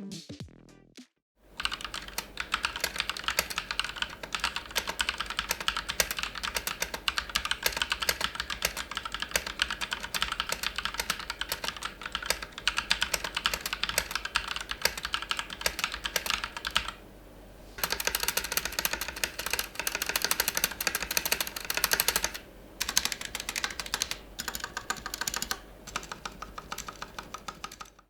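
Fast typing on a Logitech G Pro X mechanical keyboard fitted with Akko Matcha Green linear switches: a dense, continuous run of key clacks starting about a second and a half in, with two short pauses later on.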